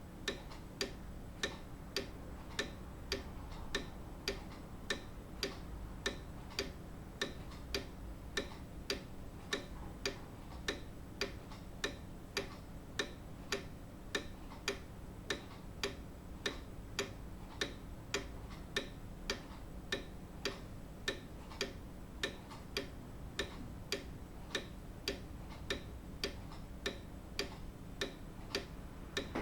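Grandfather clock ticking steadily, its escapement giving an even tick-tock of sharp, regular clicks.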